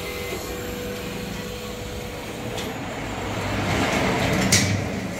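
Automatic fabric spreading machine running, its carriage motor humming steadily as it travels along the cutting table. The hum grows louder from about three seconds in, and a sharp click sounds near the end.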